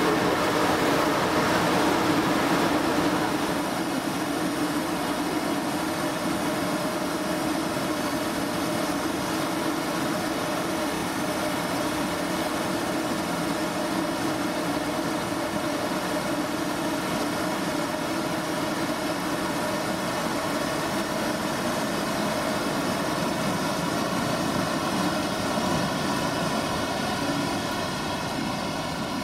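Electric locomotive running steadily at a standstill: a continuous whirring hum with faint high whining tones in it, a little louder for the first three seconds.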